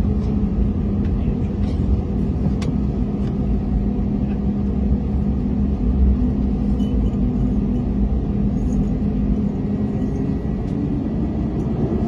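Airbus A321neo's CFM LEAP-1A engines heard from inside the cabin: a steady hum with low rumble. Near the end a whine starts to rise in pitch as the engines spool up.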